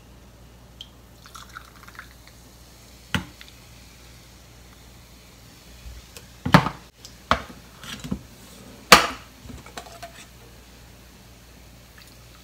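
Gelatin and cider liquid ladled from a stainless steel bowl through a small mesh strainer into plastic cups: faint dripping and trickling, broken by about five sharp knocks and clinks of the metal ladle and strainer against the bowl and cups, the loudest around the middle and again a little later.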